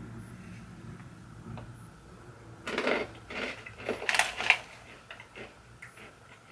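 Crunching of a dry, crunchy coated marrowfat pea being bitten and chewed: a quick run of sharp crunches starting a little under three seconds in, then a few fainter ones.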